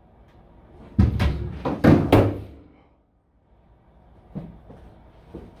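A person bumping and knocking against wooden cupboards: a burst of loud bangs and thuds about a second in, then after a brief dead gap, softer shuffling with a couple of light knocks.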